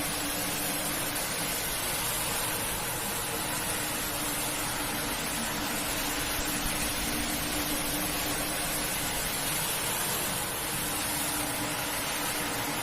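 Steady spray of water from a pressure washer on a carpet, with the washer's motor humming steadily underneath.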